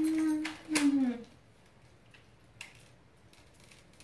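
A voice holding one long, steady note that ends about half a second in, then a short falling call with a sharp click around one second, then faint ticks in near quiet.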